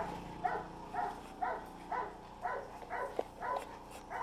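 A dog whining in short, rising yips, about two a second, faint, while it is sent to search a building for a hidden person.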